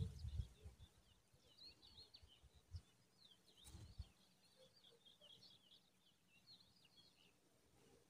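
Faint, rapid, high-pitched cheeping of lark nestlings begging in the nest, with two soft low thumps near the middle.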